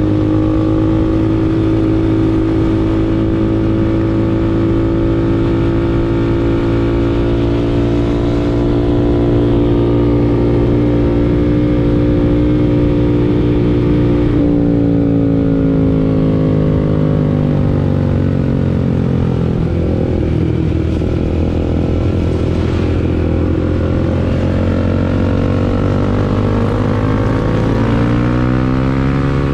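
Motorcycle engine running under way, holding a steady speed, then dropping in revs about two-thirds of the way through and picking up again near the end.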